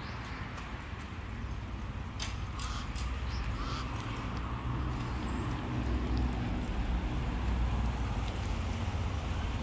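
Roadside ambience: a steady low rumble, a little louder in the second half, with a few short bird calls about two to four seconds in.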